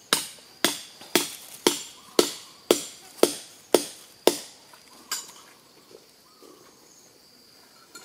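Hammer blows driving climbing pegs into a tree trunk: about ten sharp strikes, two a second, that stop about five seconds in.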